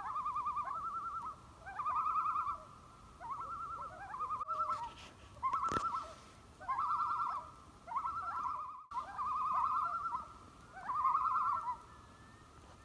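Common loon tremolo calls: about nine quavering, rapidly wavering calls in a row, each lasting about a second. A single sharp click falls about six seconds in.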